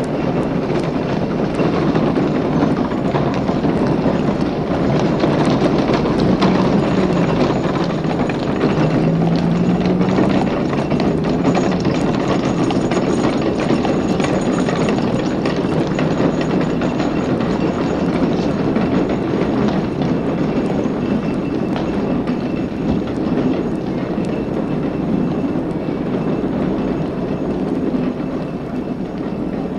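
Street traffic with trams and horse-drawn drays: a steady rumble of traffic with the clatter of tram wheels on the rails, and a couple of short rising motor whines about a quarter of the way through.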